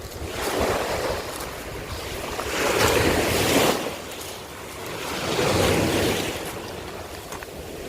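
Sea waves breaking and washing over a shore of broken scallop shells, the surf swelling and fading three times, the loudest wash about three seconds in.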